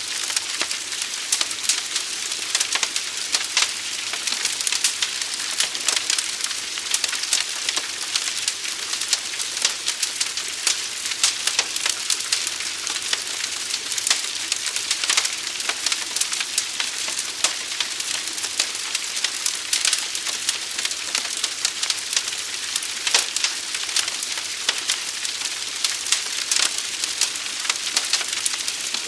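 Fire burning: a steady hiss thick with sharp crackles and pops.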